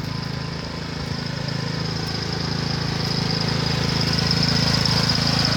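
Riding lawn mower's small engine running steadily, growing gradually louder as it approaches.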